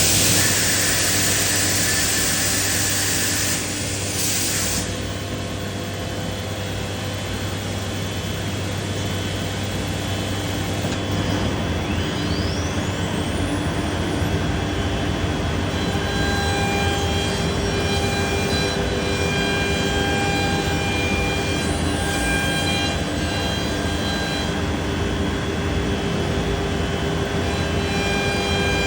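Biesse Rover K CNC router running while milling solid wood, a steady machine noise. A loud hiss fills the first four seconds or so, a rising whine follows about twelve seconds in, and from there several steady whining tones hold.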